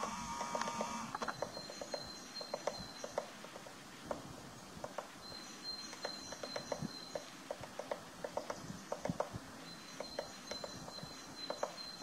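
Eurasian three-toed woodpecker chiselling out its nest hole in a tree trunk: irregular clusters of quick, sharp pecking taps on wood, with short pauses between them.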